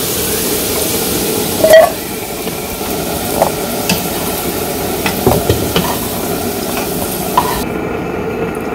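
Potato cubes sizzling in hot oil in a nonstick wok, with a melamine spoon scraping and knocking against the pan as they are stirred and scooped out. A sharp knock comes about two seconds in, and the high hiss of the frying drops away near the end.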